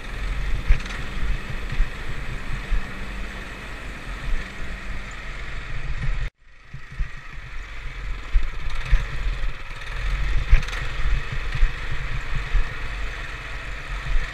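Honda ATV running on a trail ride, a steady rumbling engine and ride noise with small irregular bumps. The sound cuts out completely for a moment about six seconds in, then picks up again.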